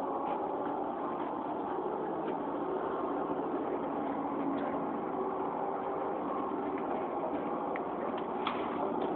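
Steady engine and cabin noise inside a city bus, with a few faint clicks and rattles.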